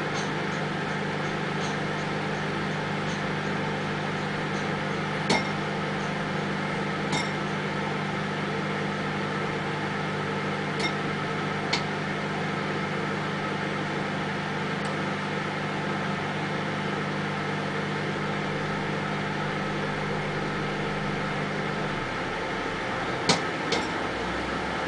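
Microwave oven running with a steady hum while popcorn kernels in a plastic-wrapped bowl pop now and then: a handful of sharp, separate pops, the loudest two close together near the end. The hum drops out shortly before those last pops.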